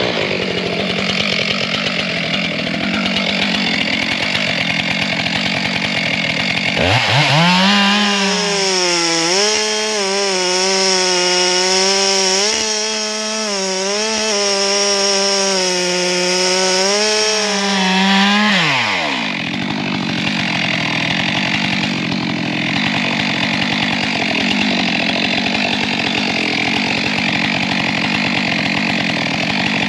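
Two-stroke chainsaw running throughout. About seven seconds in it revs up to a high, steady scream that wavers slightly for about eleven seconds, then drops back down. It is cutting into a dry, dead tree trunk to fell it.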